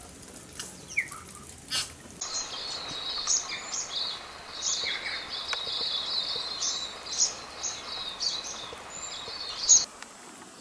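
Birds chirping in bush: a few scattered chirps, then about two seconds in a dense chorus of many short high chirps and calls that starts and cuts off abruptly near the end.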